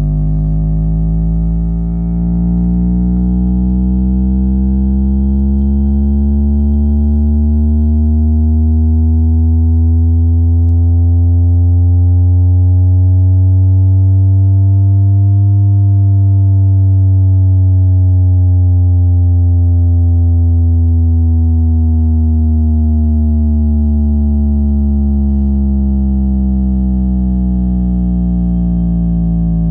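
Subwoofer driven hard with a deep, buzzy bass tone that sweeps slowly up in pitch until about halfway through, then slowly back down.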